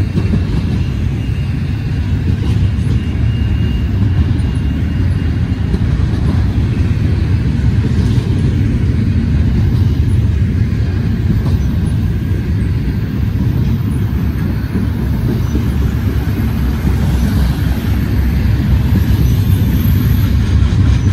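Double-stack intermodal freight train's loaded well cars rolling past close by: a loud, steady rumble of steel wheels on the rails. A faint high-pitched squeal runs for a few seconds near the start.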